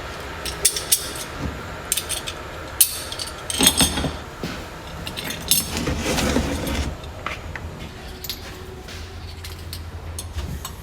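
Small metal parts and tools clinking and clattering as they are handled on a workbench, an irregular scatter of light clicks and knocks that thins out after about seven seconds.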